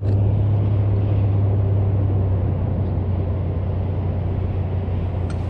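Steady low rumble of road traffic with a constant low hum underneath. A couple of light clicks come near the end.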